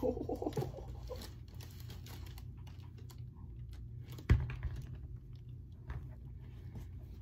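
Handling noise as a sneaker is lifted out of its cardboard shoebox and tissue paper: scattered light clicks and rustles, with one sharp knock about four seconds in.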